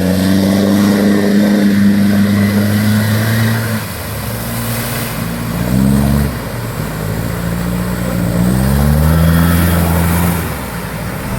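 Off-road 4x4's engine running hard under load, held at steady revs, then revving up twice with the pitch climbing and easing off again.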